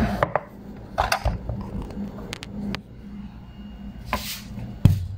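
Kitchen handling noises: a few light clicks and knocks and brief rustles as salt is shaken into a bowl and things are moved about, over a steady low hum, with a louder knock near the end.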